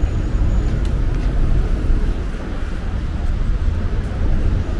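Steady city street traffic noise, a continuous low rumble with no distinct events.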